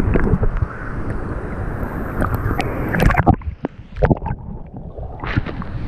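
River water splashing and sloshing right against a camera held at the water's surface by a swimmer, with many sharp little splashes. About halfway through it turns briefly quieter and duller.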